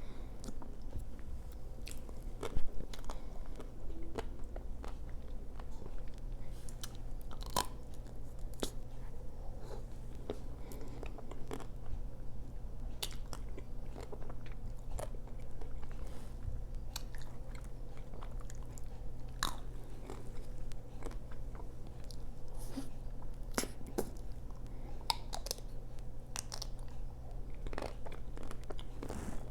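Close-miked biting and chewing of chocolate-coated ice cream bars: the hard chocolate shell cracks and crunches in scattered sharp clicks over a steady low hum, with wet mouth sounds between bites.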